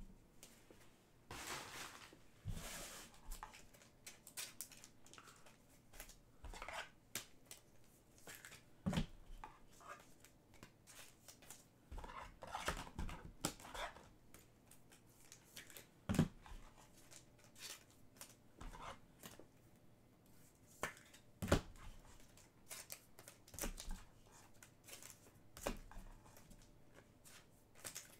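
Trading cards and their packaging being handled: irregular soft rustles, clicks and taps, with a longer rustle a couple of seconds in.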